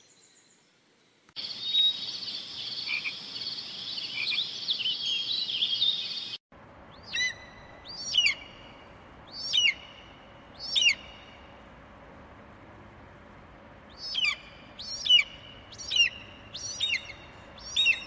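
Birdsong ambience: about a second in, a dense chorus of small birds chirping starts abruptly and cuts off suddenly some five seconds later. Then a bird gives a sharp, high, falling call again and again, four times, a pause, then five more, over a steady faint hum.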